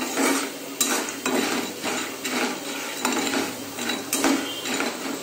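Flat spatula scraping and stirring popcorn kernels in hot oil in a metal kadai, in repeated strokes about twice a second. The kernels are being lightly roasted with turmeric and salt and have not started popping.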